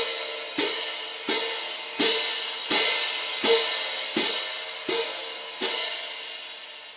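Cymbal crashes, about one every 0.7 s, nine strikes in a row, each ringing on with a bright metallic shimmer until the next; the last strike is left to ring down.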